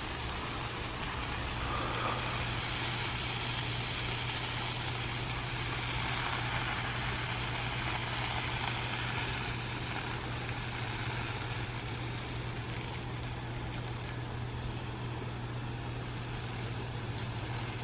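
Pop-up rotor sprinkler spraying water across a lawn: a steady hiss of spray that grows louder for a few seconds about two seconds in, over a steady low machine hum.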